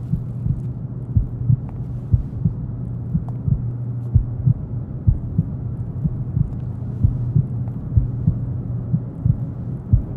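Heartbeat sound effect: deep thumps roughly once a second, often in pairs, over a steady low hum, used as tension-building sound design on a horror film soundtrack.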